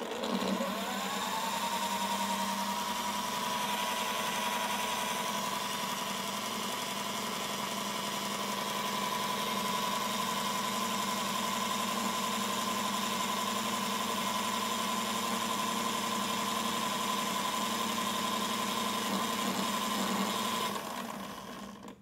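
Small electric motor of a toy washing machine, switched on by a button press, whining up to speed within about a second and then running steadily with a high whine over a lower hum. It winds down and stops near the end.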